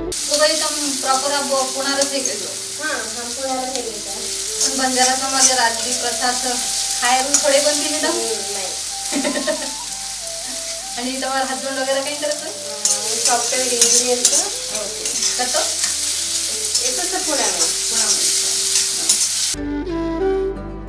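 Chopped onion, tomato and green chilli sizzling in hot oil in a black kadai, with a metal spatula stirring and scraping against the pan, over background music. The sizzling cuts off suddenly near the end, leaving only the music.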